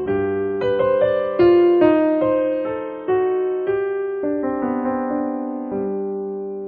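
Background piano music: single notes and chords struck at a slow pace and left to ring and fade.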